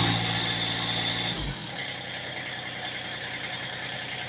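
Diesel engine of a Massey Ferguson compact tractor running just after a cold start on glow plugs, the engine pre-warmed by a small heater under its tarp. The steady engine note drops about a second and a half in, with a low thump, and a fainter running hum carries on.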